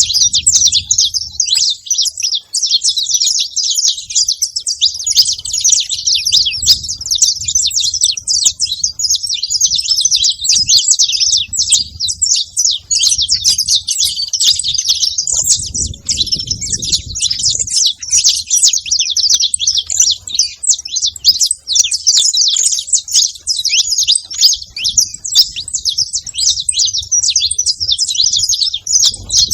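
Saffron finches chirping and twittering continuously, many short overlapping chirps with no pause.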